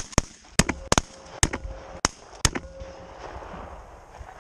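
A rapid volley of shotgun shots from several hunters firing at geese overhead, about seven sharp reports within two and a half seconds.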